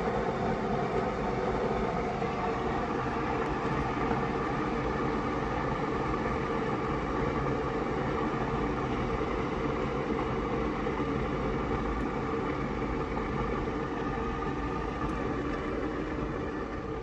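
Keurig single-cup coffee maker heating its water after being switched on: a steady, fairly loud rumbling hum that begins to die down near the end as the machine settles toward ready.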